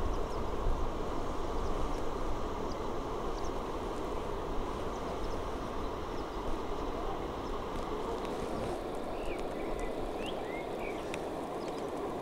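Steady rushing of flowing river water. A few short bird chirps come near the end.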